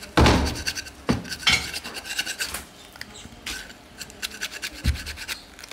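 A large knife scraping and cutting meat off a cow's foreleg bone, in quick rasping strokes, broken by several heavy knocks, the loudest just after the start and another near the end.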